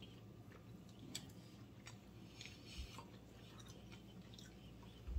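Faint chewing, with a few light clicks of a fork against a plate, over a low steady room hum.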